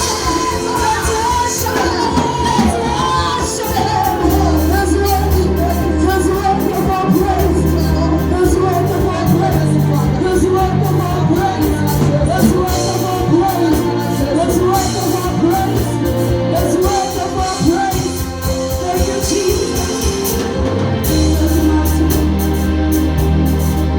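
Gospel praise-and-worship music: voices singing over a steady bass line and a regular beat.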